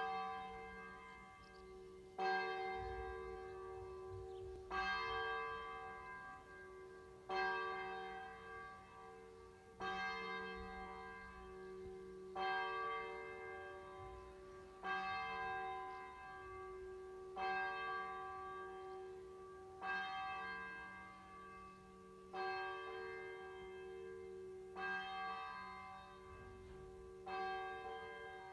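A single church bell tolling slowly and evenly, about one stroke every two and a half seconds, each stroke ringing on and fading into the next.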